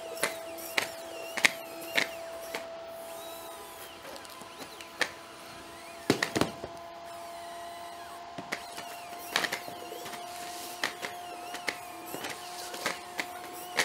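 Boston Dynamics Atlas humanoid robot's hydraulic system whining steadily as the robot walks and lifts a box, its pitch creeping up slightly. Sharp clicks and knocks from its feet, joints and the box come throughout, with the loudest cluster about six seconds in.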